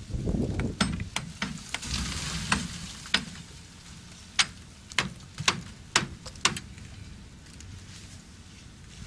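Wind buffeting the microphone at first, then a run of about a dozen sharp cracks and ticks, loudest in the middle: ice breaking off and striking a rime-iced transmitter mast.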